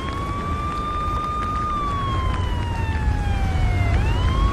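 Fire engine siren wailing: the pitch holds high, sinks slowly, then climbs again about four seconds in, over a steady low rumble.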